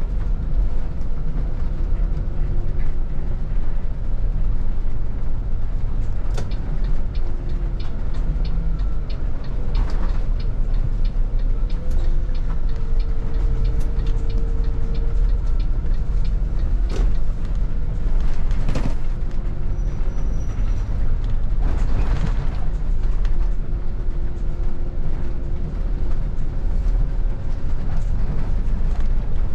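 City bus running and driving, heard from the driver's seat: a steady low engine and drivetrain rumble with a whine whose pitch shifts now and then, and cabin rattles and creaks with a few sharp clicks.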